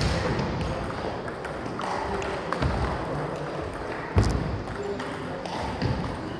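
Table tennis rally: the ball clicking sharply off bats and table, with a few dull thuds of feet on the wooden floor, the loudest about four seconds in as a player lunges wide.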